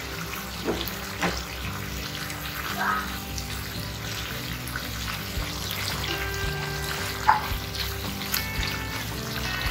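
A thick fish curry simmering in a nonstick pan, its sauce cooked down nearly dry, while a slotted spatula stirs it with a few sharp scrapes and taps against the pan. Soft background music plays throughout.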